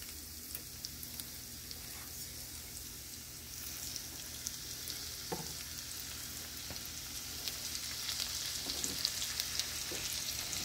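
Deer tenderloin frying in olive oil and butter in a cast iron skillet: a crackling sizzle that grows louder from about a third of the way in, with a soft knock about halfway through.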